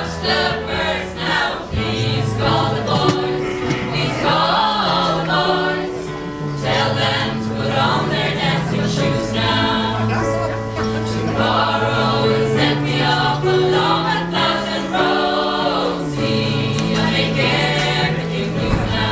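A choir singing in several-part harmony, with a low line moving slowly beneath the upper voices.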